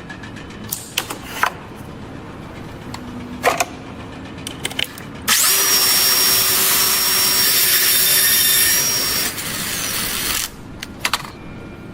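A power tool runs loudly and steadily for about four seconds, starting about five seconds in, then drops off. Scattered knocks and clicks come before and after it.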